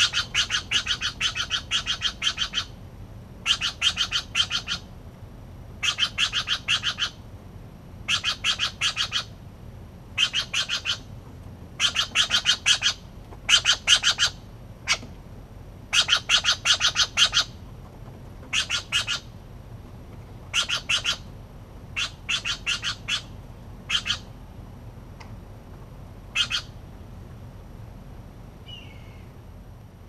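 Steller's jays calling: bouts of rapid, harsh repeated notes, each one to two seconds long, coming every couple of seconds, then thinning out and stopping a few seconds before the end.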